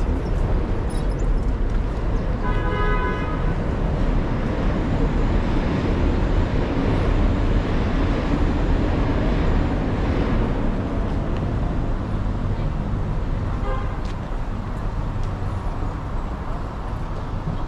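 City street traffic: a steady rumble of passing cars and other vehicles, with a short car horn honk about two and a half seconds in.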